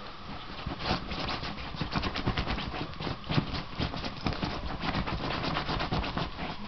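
Puppy digging and scratching at soft bedding with its paws: a quick, busy run of scratching and fabric rustling that starts about a second in and stops near the end.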